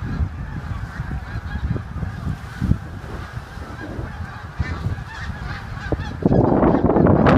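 A large flock of snow geese calling, a dense continuous chorus of many honks, over a low rumble of wind on the microphone. About six seconds in it swells sharply into a much louder rush as the flock takes off.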